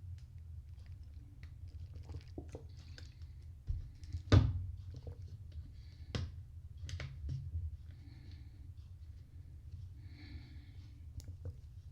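Knitting needles clicking and tapping irregularly as stitches are worked, with one louder knock about four seconds in, over a low steady hum.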